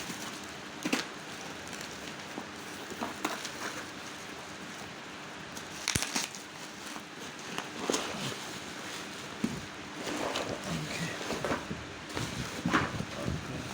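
Packaging being handled by hand while a parcel is unboxed: scattered rustles, taps and clicks over a faint steady hum.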